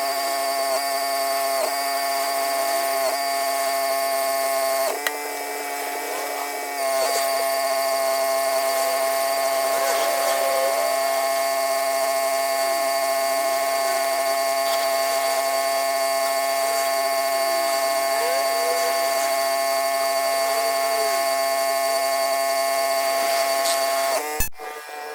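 Pressure washer running steadily while washing sandstone paving: a constant mechanical whine over a spray hiss. The sound drops in level for about two seconds about five seconds in, then comes back at full strength.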